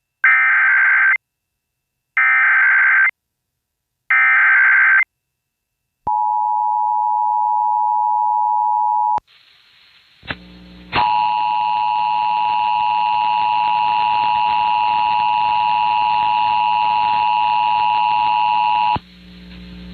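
Emergency Alert System tones for a Child Abduction Emergency. First come three short, screechy bursts of digital header data, about a second apart. Then the two-tone attention signal sounds for about three seconds, and after a short gap it sounds again for about eight seconds with hiss and hum beneath it, then cuts off.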